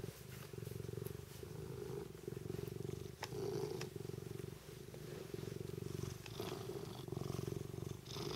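Tonkinese cat purring steadily, right up against the microphone, the purr swelling and easing with each breath in and out. A couple of brief clicks sound near the middle.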